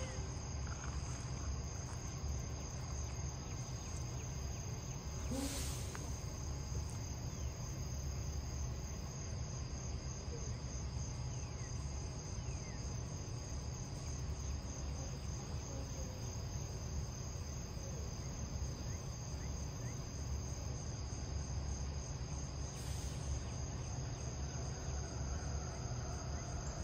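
Steady chorus of insects trilling, a high-pitched pulsing drone, over a constant low rumble.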